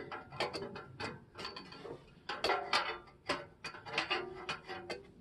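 Slip-on motorcycle exhaust muffler clicking and scraping metal on metal as it is pushed and twisted against the header pipe, its clamp too tight to slide on. Irregular sharp clicks, about a dozen, some with a short metallic ring.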